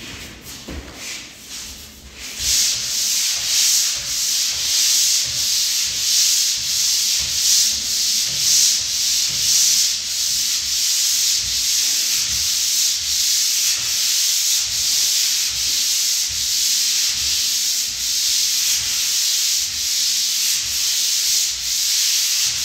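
Manual pole sander rubbing back and forth across the joint compound on a drywall ceiling: a rasping hiss in about two strokes a second. It grows louder about two seconds in and stays even from then on.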